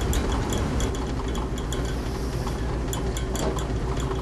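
Quick, uneven run of light metallic clinks and clicks from passing horses, their tack and shod hooves, over a steady low rumble.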